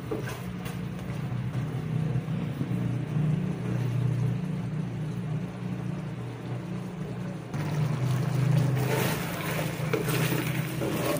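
A steady low hum, like a fan or small motor running, stepping up about seven and a half seconds in. Near the end a wooden spatula scrapes and stirs chicken feet in a sauce-glazed steel wok.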